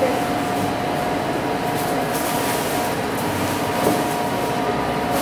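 Steady whir of a kitchen appliance fan with a steady humming tone, and one light knock about four seconds in.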